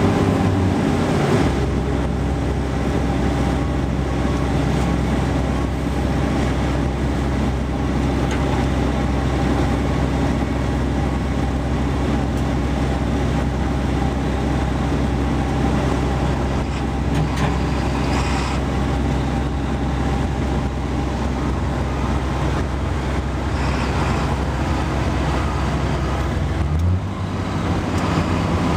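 Caterpillar 345D L excavator's diesel engine running steadily, heard from inside its cab. About 27 seconds in the sound changes abruptly to a different outdoor mix of heavy machine noise.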